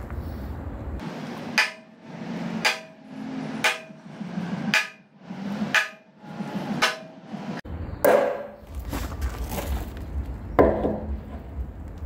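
Hammer striking a centre punch on thick steel plate six times, about a second apart, each blow ringing briefly: marking the hole centres for drilling. Two heavier metal clanks follow near the end.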